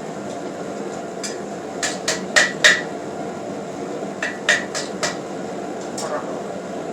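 Hand hammer striking hot steel on an anvil, about ten ringing blows in two quick runs with a pause between, as the leaf tip is curled over. A steady background rush runs underneath.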